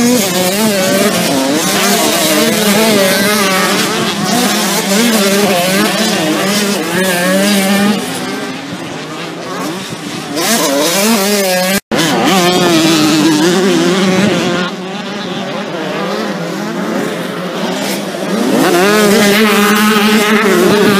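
Several motocross bikes' engines revving hard, their overlapping pitches rising and falling as the riders accelerate and shift. The sound cuts out for an instant about twelve seconds in, then the engines pick up again, growing louder near the end.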